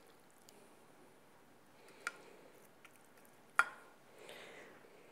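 Mostly quiet kitchen, with two short clicks of a utensil against a ceramic baking dish, one about two seconds in and a louder one about three and a half seconds in, while seitan and stewed onions are spread over the bottom of the dish.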